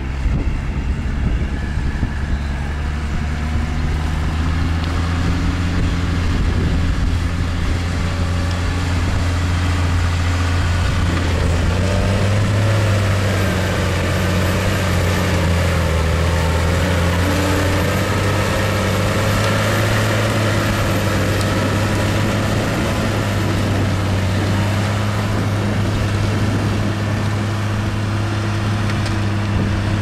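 New Holland T7040 tractor's six-cylinder diesel engine running steadily under load while pulling a reversible plough. It grows a little louder about twelve seconds in as the tractor comes close.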